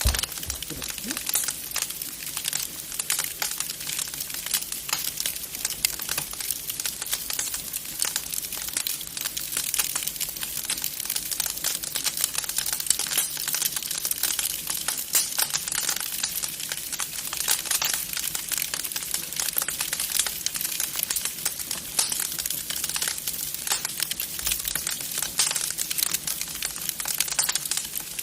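Wood fire crackling in a fireplace: a steady stream of small irregular pops and crackles.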